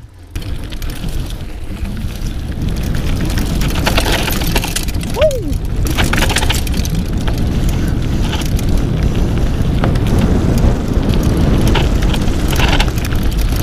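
Mountain bike ridden over rough ground off the trail: a loud, steady low rumble with scattered sharp knocks, and a short falling squeak about five seconds in.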